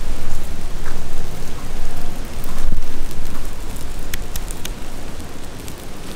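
Wind buffeting the microphone: a loud, uneven rushing noise with a heavy rumble, swelling and easing, with a few faint clicks.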